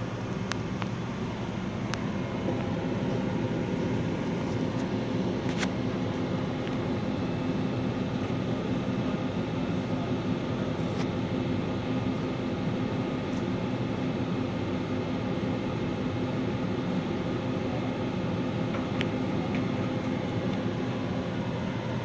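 CEM Discover-S microwave digestion system running a heating program at 200 W: a steady fan whir with a low hum, and a few faint ticks.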